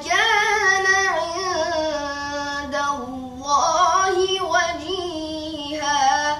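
A boy's voice chanting the Quran in melodic recitation style (tilawah): one long drawn-out phrase whose pitch winds up and down, dipping briefly about three seconds in, heard as replayed from a television.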